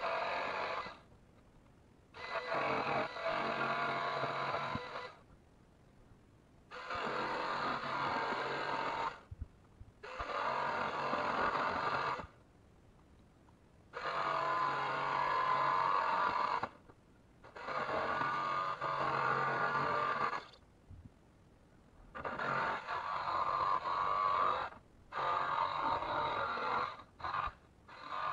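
Handheld electric power tool working on a van's steel roof panel, switched on and off about nine times in runs of one to three seconds with short quiet pauses between.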